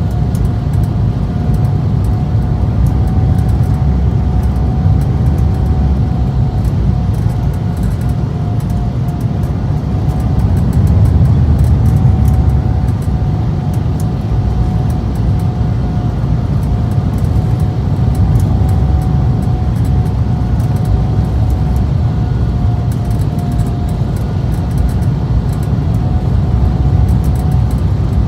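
Cabin noise inside an Embraer E190 airliner on its arrival: a steady low rumble of engines and airflow, with a thin steady whine held over it, swelling slightly about eleven seconds in.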